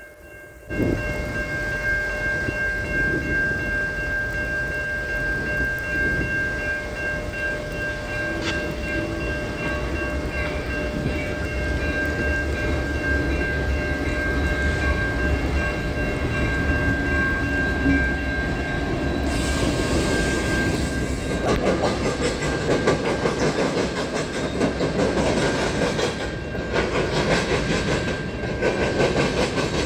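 A grade-crossing warning bell rings steadily while a Canadian National diesel freight train approaches and its locomotive rumbles past. About two-thirds of the way in, covered hopper cars start rolling over the crossing with a rhythmic clickety-clack of wheels on rail joints.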